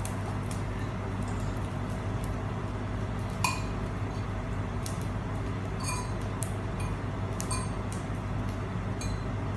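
Metal serving fork clinking against a frying pan and a ceramic bowl while noodles are dished out: half a dozen scattered clinks, the sharpest about three and a half seconds in.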